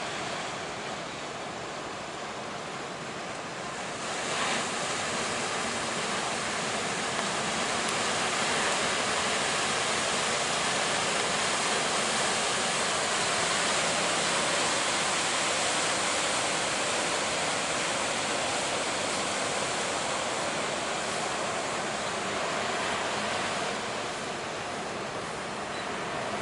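Heavy ocean surf breaking, a continuous wash of water noise that swells about four seconds in, stays strong through the middle and eases near the end.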